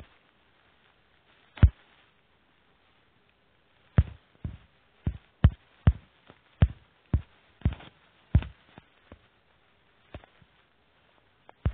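A string of short, sharp taps, about a dozen at uneven intervals, most of them bunched together in the middle of the stretch: fingertip taps on a phone's touchscreen.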